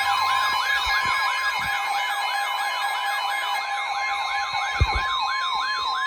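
Weather-alert siren: a fast wailing tone sweeping up and down about three times a second over a steady warning tone near 1 kHz, the 1050 Hz alert tone of NOAA Weather Radio, signalling a warning about to be read. The sweeping stops right at the end, and a brief low thump comes about five seconds in.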